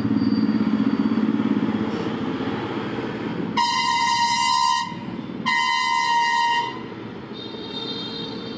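A vehicle horn honks twice, each blast a little over a second long and loud, with a fainter, higher-pitched honk near the end. Before the honks, a vehicle engine runs with a low rumble.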